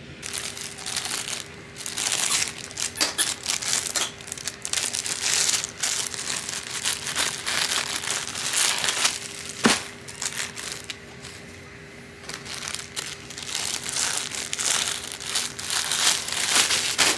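Clear plastic packaging crinkling as it is handled, in irregular bursts, with a short pause past the middle.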